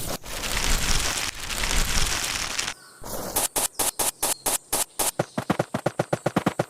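Small-scale handcraft work on a miniature build: about two and a half seconds of rough scraping noise, then a run of short, even taps that quicken to about seven or eight a second.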